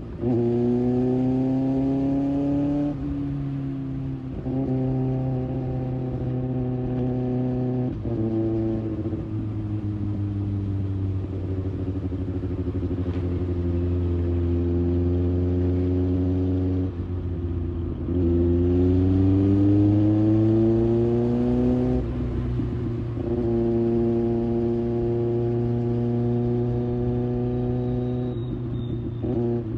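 Kawasaki Ninja ZX6R inline-four with an IXIL exhaust under way, revs climbing and dropping sharply at each upshift several times, easing off and falling for several seconds midway, then pulling up through the gears again.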